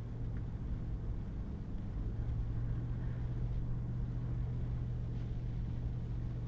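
Pickup truck driving at a steady speed on a wet dirt road, heard from inside the cab: a steady low engine drone with road noise from the tyres.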